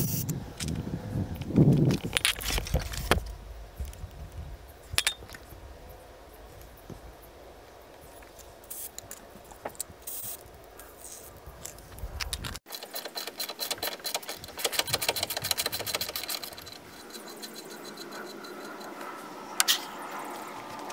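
Metal tools and parts clinking and rattling as they are handled, with scattered clicks at first. After an abrupt change about two-thirds of the way in comes a run of rapid metallic clicking lasting a few seconds.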